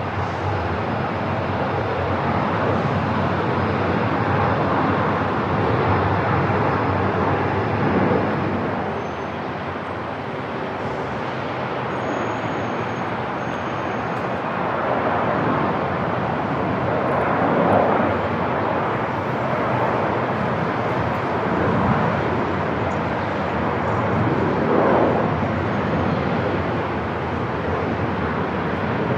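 Airport ambience: a steady wash of noise that swells briefly a few times.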